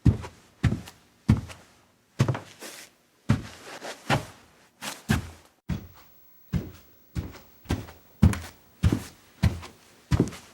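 Footsteps on a staircase: a steady series of thudding steps, about one and a half a second, with a short pause a little past halfway.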